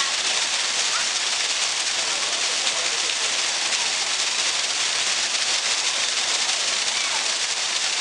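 Artificial waterfall: a narrow stream of water falling from a height and splashing steadily into a shallow pool, an even, unbroken hiss.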